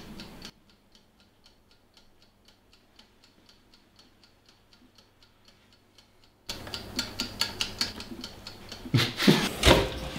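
Steady clock-like ticking, about four ticks a second, heard first over near silence and then over room sound. Near the end come a few louder knocks and a kitchen drawer being pulled open.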